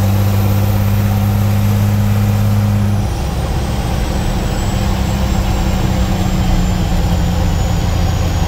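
Straight-piped International DT466 turbo-diesel of a 1978 Loadstar dump truck under way, heard from inside the cab: a loud, steady engine drone whose note drops lower and weaker about three seconds in. Over it a thin, high turbo whine climbs, then slowly falls away.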